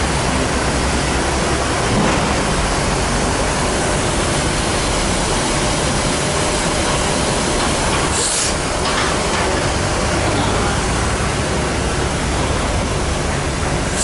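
Steady loud rushing roar of an airport apron. A brief high hiss comes about eight seconds in and another near the end.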